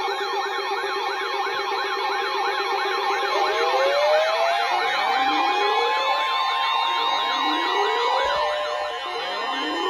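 Several sirens sounding at once: a fast warble rising and falling two to three times a second over steady tones. About three and a half seconds in, slow rising wails join it and repeat about every two seconds.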